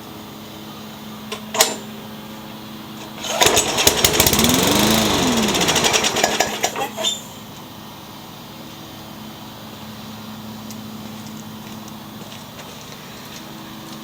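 A Yard Machines push mower's 3.5 hp Briggs & Stratton Classic engine briefly sputters into life for about three and a half seconds, speeding up and then dropping away before it dies. Its carburetor does not prime. A short click comes about a second and a half in, and a faint steady hum runs underneath.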